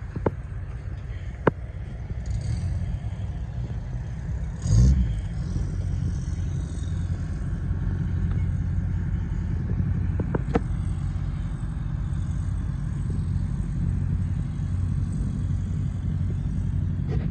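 Kubota L2900 tractor's three-cylinder diesel engine idling steadily, with a dull thump about five seconds in and a couple of sharp clicks.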